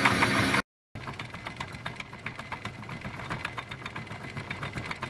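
Myford ML7 lathe running for a moment, cut off abruptly. After that come quiet, irregular light clicks of a micrometer and telescopic gauge being handled and adjusted to measure the bore.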